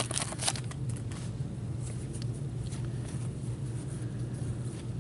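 Steady low background hum, with faint rustling and ticks of a torn foil card-pack wrapper and trading cards being handled, mostly in the first half second.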